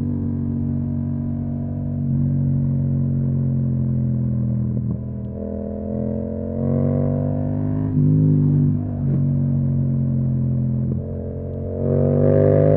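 Yamaha MT-07's parallel-twin engine through an Akrapovic exhaust, running under varying throttle while riding. Its pitch holds steady, shifts several times as the throttle changes, and rises near the end as it accelerates.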